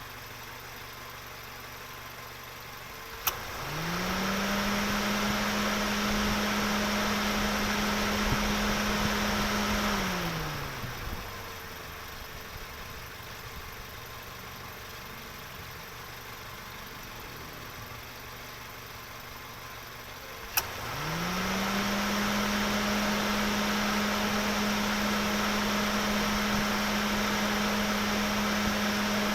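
Car engine idling low, then, just after a click, run up to a steady higher speed and held there for several seconds before falling back to idle. The same click and rise come again about twenty seconds in, and the engine stays up at speed.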